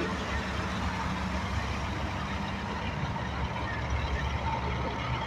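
Diesel semi-trucks running as they pass on the road, a steady low engine rumble.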